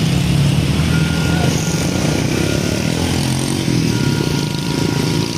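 Heavy diesel truck engine running close by over road and traffic noise. A thin, steady high tone sounds twice, about a second in and again near the end.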